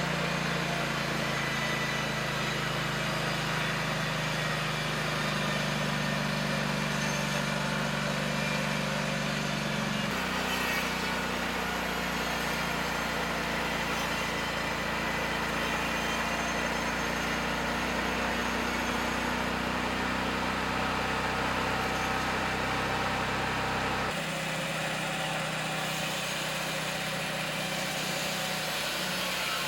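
Vintage band sawmill's gasoline engine running steadily while the mill makes a cut. The engine note shifts abruptly about 10 seconds in and again about 24 seconds in.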